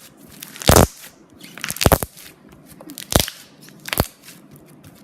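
Pink fluffy slime (shaving cream, glue and borax) being stretched and pressed to make a bubble, giving four loud crackling pops as trapped air bursts out.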